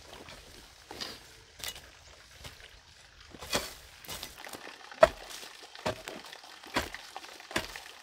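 A series of short, dull knocks, coming about once a second in the second half, with a brief scraping rustle about three and a half seconds in.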